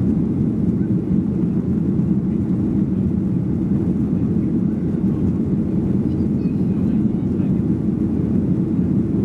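Steady low drone inside the cabin of a Boeing 737-800 climbing out after takeoff: the CFM56 turbofan engines and airflow, heard from a rear seat.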